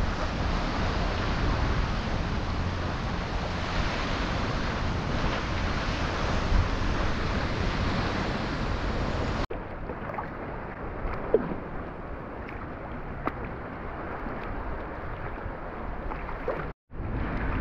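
Kayak paddling on the sea: a steady rush of wind on the microphone with water sloshing around the paddle and hull, then, about halfway through, a quieter stretch of lapping water with a few small drips and splashes.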